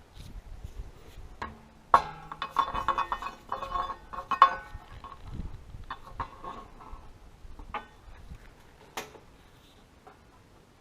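Metal tools and parts clinking and clattering as they are handled, with a busy run of ringing clinks from about two to five seconds in and a single sharp click near the end.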